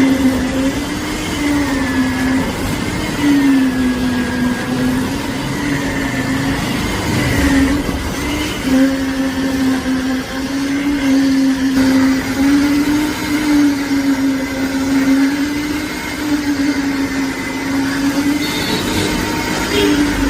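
Construction machine motor running steadily with a loud, even hum whose pitch wavers slightly up and down.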